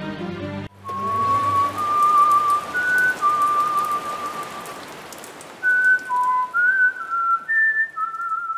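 Drama background score cutting off abruptly less than a second in. A lone whistled tune of long held, slightly wavering notes follows, over a steady hiss like falling rain.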